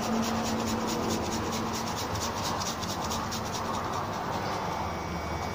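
Garlic clove being grated on a fine stainless-steel hand grater: quick, even rasping strokes, about four or five a second, that stop shortly before the end.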